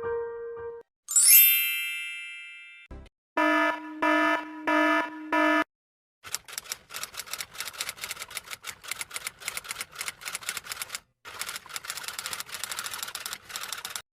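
A string of separate comedy sound effects. It begins with the last note of a short piano tune and a bright sparkling chime flourish, then a short thud and four evenly spaced electronic beeps. The rest is about eight seconds of fast, irregular clicking like typewriter keys, with a brief pause near the middle.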